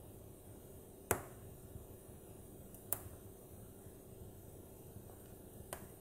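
Wood logs burning in a fireplace: a faint steady rush of flame with three sharp crackling pops, the loudest about a second in, another near three seconds and a third near the end.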